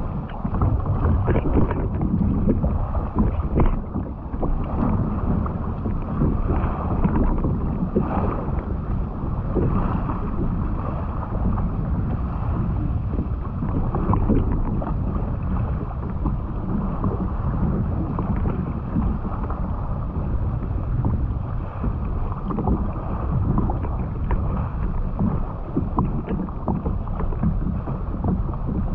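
Choppy sea water sloshing and splashing around a sea kayak, with wind buffeting the microphone.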